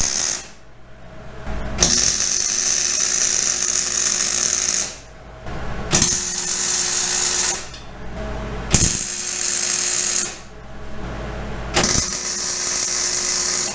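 MIG welder laying tack welds on a quarter-inch steel axle truss: four runs of crackling arc noise, each about one and a half to three seconds long, each starting with a sharp pop, with short pauses between.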